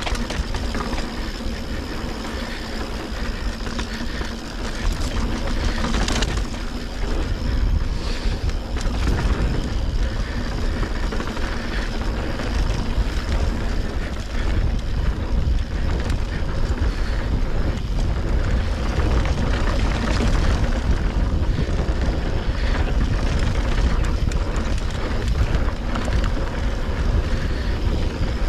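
Mountain bike descending a dirt trail: a steady rush of wind noise on the microphone, with tyre noise and the bike rattling over bumps, and a few sharper knocks.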